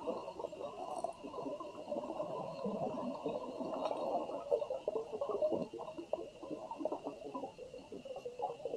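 Muffled underwater ambience picked up by a submerged camera: irregular crackling and rustling with many small clicks, over a steady high whine.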